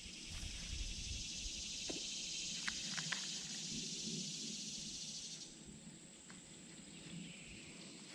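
Steady high-pitched insect buzz that cuts off abruptly about five and a half seconds in, with a few faint clicks about two to three seconds in.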